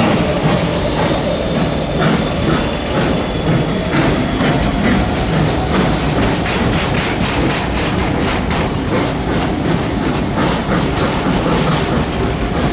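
Steam-hauled heritage passenger train pulling out of a station, heard from an open carriage window: a steady rolling rumble, with a run of quick, regular clicks from about six seconds in.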